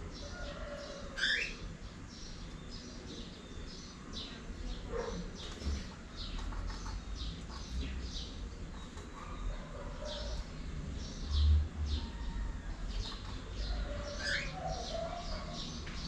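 Cockatiels chirping: many short high chirps, with a couple of calls that sweep down in pitch. A brief low thump about eleven seconds in.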